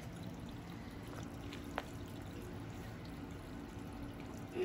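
Steady trickle of running pond water, with a single faint tick a little under two seconds in.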